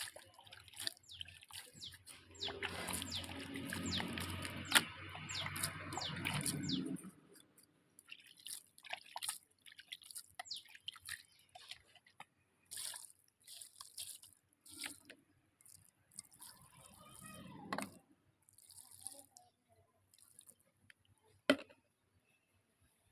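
Water dripping and splashing in many small drops as muddy toys are washed, with a stretch of steadier running water from about three seconds in, lasting about four seconds.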